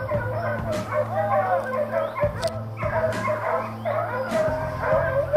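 A pack of Beagle Harrier hounds baying in chorus, many overlapping cries and yelps, giving tongue as they run the scent of wild boar.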